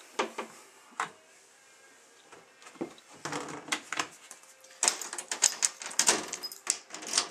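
Knocks, clatters and scrapes from a glass terrarium being opened and handled: a few separate knocks in the first three seconds, then dense rattling and scraping from about three seconds in.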